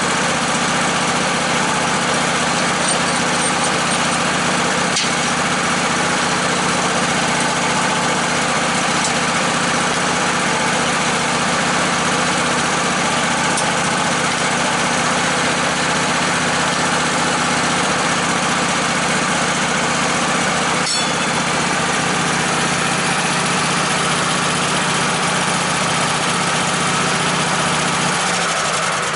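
Sawmill engine running steadily at an even speed, then shut off near the end and dying away.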